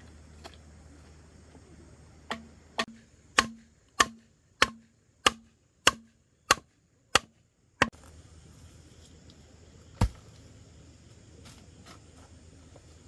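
About ten sharp, evenly spaced blows of a hand tool, a little over half a second apart, then a single further blow a couple of seconds later.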